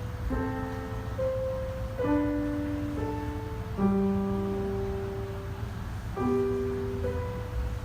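Slow piano-toned keyboard music: a new chord or note is struck about once a second and rings on as it slowly fades. A steady low rumble runs underneath.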